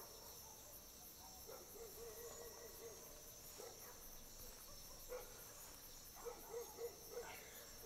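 Night-time chorus of crickets and other insects, a steady high-pitched trill, faint overall. Short runs of soft, repeated low notes come in about a second and a half in and again near the end.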